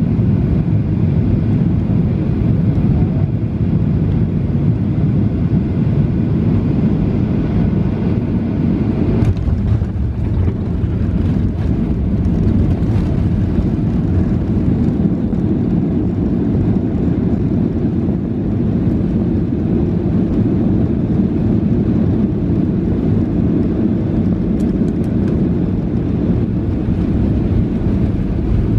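Boeing 737-800 landing, heard from inside the passenger cabin: a steady rumble of airflow and engines on short final, a touchdown thump about nine seconds in, then the heavier rumble of the landing roll down the runway.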